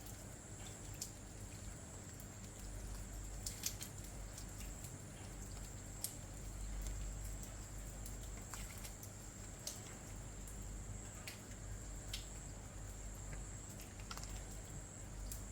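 Rain falling at night, with irregular drips and drop impacts heard as scattered sharp clicks over a steady patter. A thin, steady high-pitched tone runs underneath.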